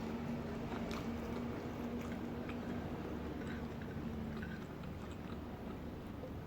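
Close-up chewing and biting of food, with small wet clicks and mouth sounds, over a steady low hum that fades about two-thirds of the way through.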